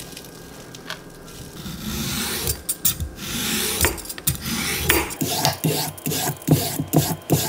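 Vegetable peeler scraping down a raw carrot on a wooden cutting board, shaving it into strips: repeated rasping strokes that come quicker and sharper, with clicks, in the second half.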